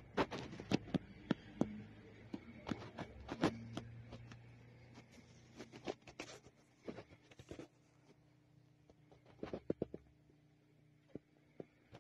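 Scattered sharp clicks and taps, irregular and in small clusters, over a low steady hum.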